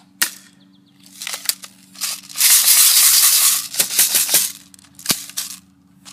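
Crosman ZT32 plastic spring airsoft shotgun being handled and fired: sharp cracks a little after the start and again about five seconds in, with bursts of plastic rattling and clicking in between. A loud rushing noise lasts for about a second in the middle.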